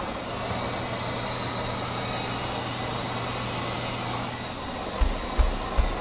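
Handheld Wagner electric heat gun running with a steady fan whir, blowing hot air along a refrigerator door gasket to soften it so it seats and seals. A low hum drops away about four seconds in, and a few low thumps come near the end.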